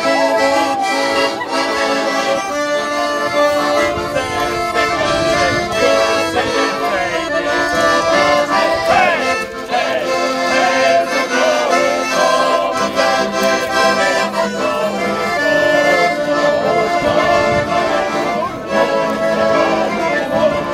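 Several piano accordions playing a tune together.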